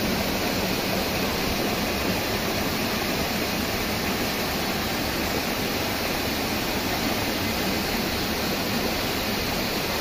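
Waterfall: water falling over rocks into a pool, a steady, even rushing noise with no pauses.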